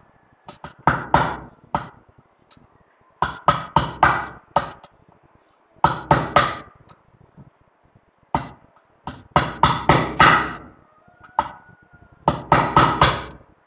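A hammer tapping a thin wrench held against the retaining collar of a Delco Remy 9-tooth Bendix starter drive, in about six bursts of several quick, light metal-on-metal blows with short pauses between. Each burst drives the thin collar further down the shaft, off the snap ring beneath it.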